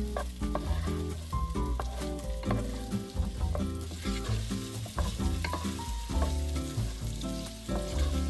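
Diced onion sizzling in oil in a granite-coated nonstick pot, with a wooden spatula scraping and tapping the pan as it is stirred, under background music with a low bass line and a stepping melody.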